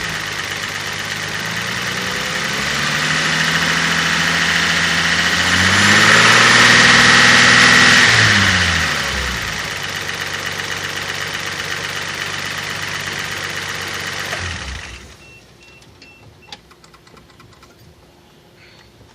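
Toyota 5M-GE 2.8-litre inline-six running, revved up and held for a couple of seconds, then settling back to idle before it is switched off about fifteen seconds in. It carries a tapping, clacking noise that the owner cannot place as lifter tick, rod knock or piston slap.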